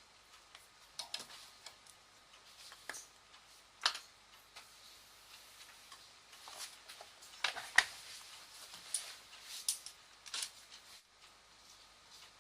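Scattered small clicks and taps at irregular intervals, with the loudest about four and eight seconds in.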